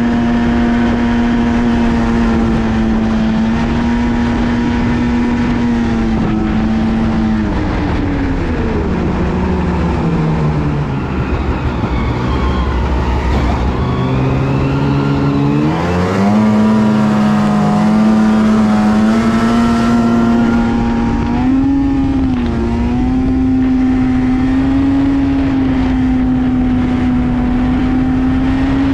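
Snowmobile engine running at a steady trail-riding speed. About seven seconds in it eases off and its pitch falls, then about sixteen seconds in it speeds back up to the same steady note.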